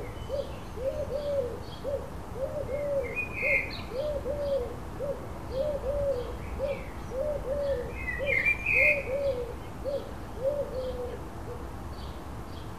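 A pigeon cooing: a low note with a rise and fall, repeated singly and in pairs about twice a second, stopping near the end. Small birds give brief high chirps twice.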